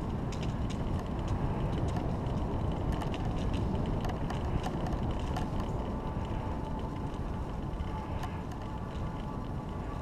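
Bicycle riding along a paved trail: a steady low rumble of tyres on asphalt and wind on the camera's microphone, with scattered clicks and rattles from the bike. A faint steady tone joins about eight seconds in.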